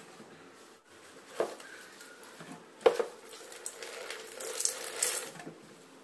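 Wet laundry being pushed by hand into the stainless drum of a front-loading washing machine: rustling and handling noises, with a light knock about a second and a half in and a sharper, louder knock near three seconds.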